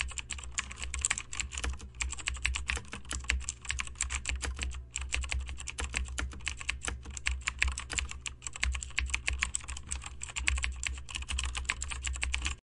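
Fast typing on a keyboard: a dense run of key clicks with a few brief pauses, over a low steady hum, cutting off suddenly near the end.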